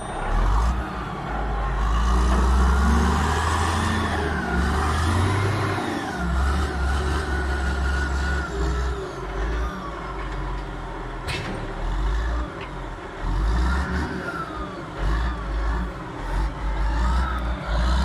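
Caterpillar wheel loader's diesel engine running and revving as the machine drives off, with a whine that wavers up and down in pitch. A single sharp knock is heard about eleven seconds in.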